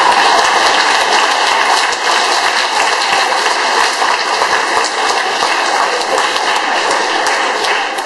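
Audience applauding: a dense, steady clatter of many hands clapping.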